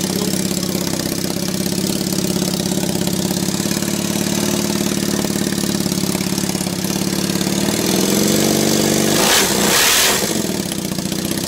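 Honda CM400 parallel-twin engine, fitted with a bare chrome exhaust pipe, idling steadily. About eight seconds in it revs up, with a louder, rougher surge of exhaust noise near the end.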